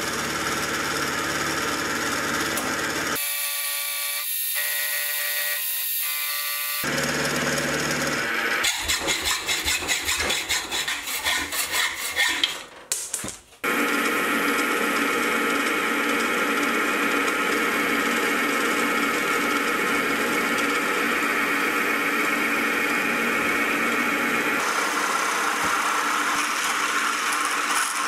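Milling machine spindle running while cutting a metal plate, first with an end mill and then drilling into it with a long drill bit. The steady running sound is broken by a few abrupt changes and, around the middle, a few seconds of uneven rattling.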